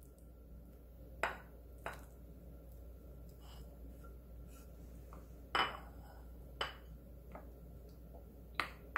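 A wooden spoon knocking and scraping against a ceramic plate and an earthenware ttukbaegi pot while pollock roe is scraped into beaten egg. It is a handful of separate knocks, the clearest near the start and two more past the middle.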